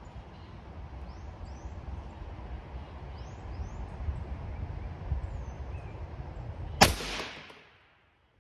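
A single rifle shot from a 16-inch 6.8 SPC AR-15 firing a Hornady 120 gr SST handload, about seven seconds in: one sharp crack with a short ringing tail that dies away within a second. Before it, steady outdoor background with a few faint bird chirps.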